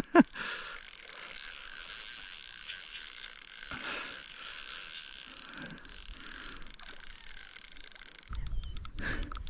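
Insects chirping in a steady, high, fast-pulsing chorus. Near the end a low wind rumble comes in, along with a run of quick, sharp clicks.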